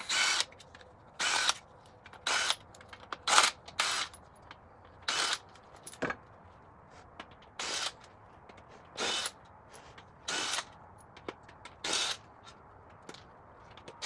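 A power wrench zips a 13 mm socket on the crankshaft main-cap bolts of a Ford 4.6 three-valve V8 in about ten short bursts, each under half a second, with uneven pauses between them.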